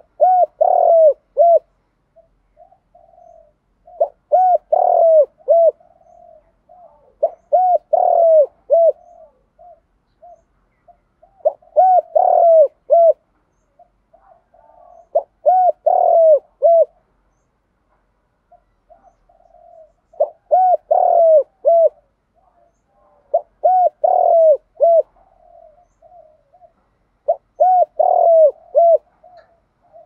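Spotted dove giving the 'gù đấu' challenge coo: a phrase of several short coos, each rising and falling, repeated about every three to four seconds, eight times, with softer coos between the phrases.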